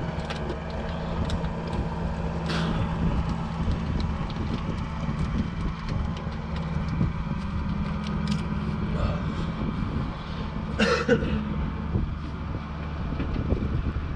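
An engine idling steadily with a low, even hum, with a couple of brief sharp knocks from parts being handled.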